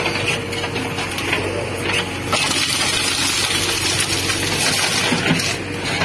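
A JCB 3DX backhoe loader's diesel engine runs with a steady drone while its bucket drags through dry brush and branches, which crackle and snap. A louder rustling scrape lasts from about two seconds in until about five and a half seconds in.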